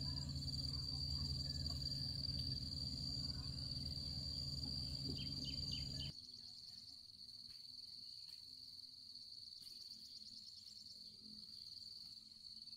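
Insects trilling steadily in one high, unbroken drone. For the first six seconds a loud low rumble lies under it, then cuts off abruptly. After that faint chirps repeat above the drone.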